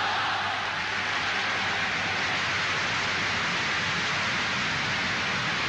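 Massed crowd in a large hall shouting its answer and cheering as one steady, unbroken roar. It is heard through the hiss of an old archival recording.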